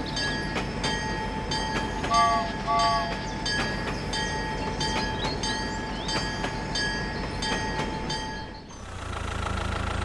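Toy steam train's electronic sound effects: a rhythmic chugging with a steady whistle tone, and two short two-note horn toots a little after two seconds in. Near the end the train sound stops and a low steady hum starts.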